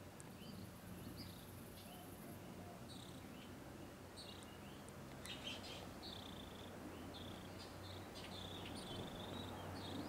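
Small birds chirping and warbling in short, scattered calls, over a faint steady low hum.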